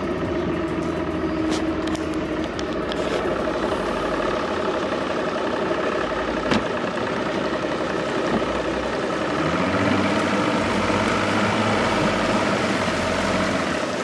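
Mercury OptiMax two-stroke outboard motor idling steadily just after being started, with one sharp click about halfway through.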